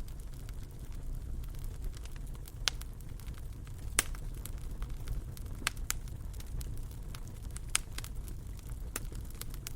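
Wood fire burning in a fireplace: a steady low rumble of flames with sharp, irregular crackles and pops, the loudest about four seconds in.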